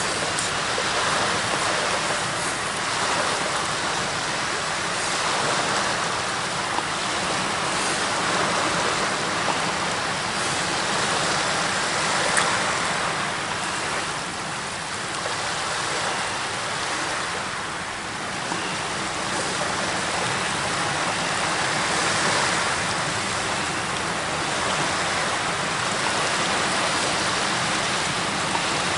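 Steady rushing of river water washing on the bank, swelling and easing gently every few seconds, with no engine tone heard.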